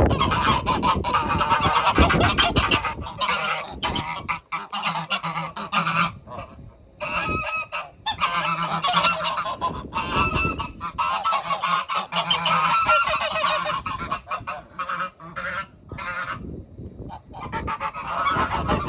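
Goose honking over and over in long runs of calls, with short breaks about four and seven seconds in.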